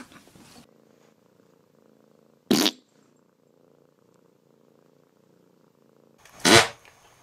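A cat purring faintly and steadily, broken twice by short sharp bursts of noise about four seconds apart, the second louder and longer.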